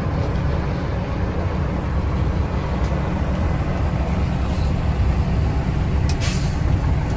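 Loaded semi truck's diesel engine running steadily, heard inside the cab as the truck drives, with a short sharp click about six seconds in.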